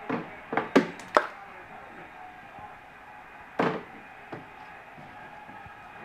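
Plastic toy-kitchen refrigerator door being banged and clacked by a toddler: four quick knocks in the first second or so, a louder clack a few seconds in and a lighter one soon after, over a steady hum.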